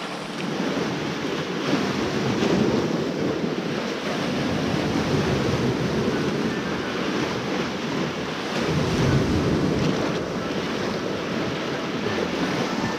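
Sea waves washing on the shore in a steady, surging wash, with wind gusting on the microphone.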